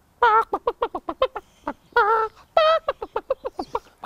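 A man imitating a chicken: quick runs of short clucks with two longer, wavering 'bawk' calls about two seconds in.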